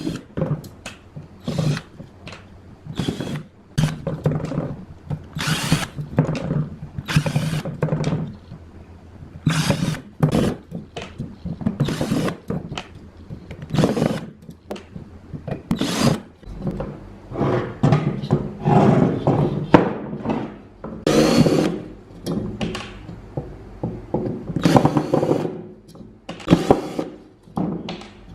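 A handheld power tool such as a drill, run in many short, irregular bursts, with a few longer runs in the second half.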